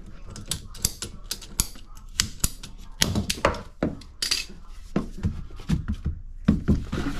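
A ratcheting PVC pipe cutter clicks as it closes on a PVC drain pipe. Louder knocks and clatter follow as the cut-off PVC fitting is handled.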